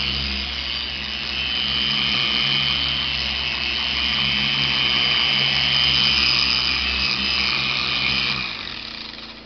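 Electric random orbit car buffer with a soft microfiber pad running steadily on fabric upholstery: a low motor hum with a high whine. It winds down and stops near the end.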